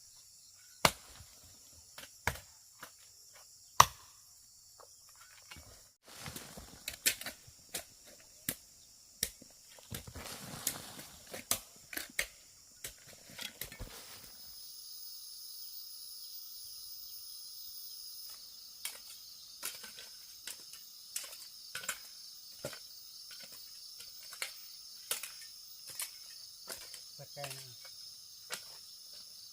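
Irregular sharp knocks, one to two a second, the loudest in the first few seconds, with a stretch of rougher scraping noise around the middle. Behind them is a steady high chirring of insects, stronger in the second half.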